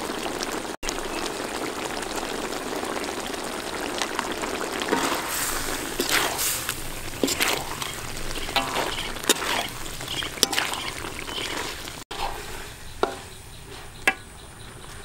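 Chicken gizzards cooking in sauce in a wok over a charcoal stove, a steady sizzling, bubbling hiss. From about five seconds in, a metal ladle stirs and scrapes against the wok in short sharp strokes. About twelve seconds in it drops quieter, with a few single ladle clicks.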